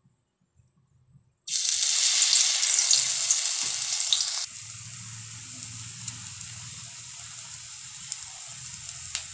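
Masoor dal and cabbage fritter batter sizzling loudly in hot oil in a steel wok, starting suddenly about a second and a half in. From about four and a half seconds in, a steadier, quieter sizzle of a batch of fritters frying.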